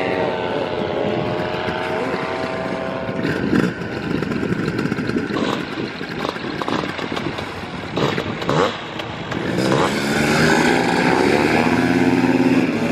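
Paramotor engine and propeller running, getting louder about ten seconds in as it is throttled up for the takeoff run.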